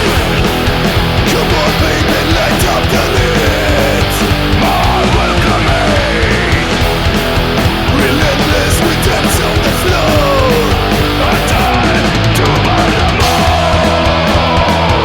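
Punk rock band playing loud and steady: distorted electric guitars, bass and drums. A lead guitar line of sliding, falling notes runs over it from a few seconds in.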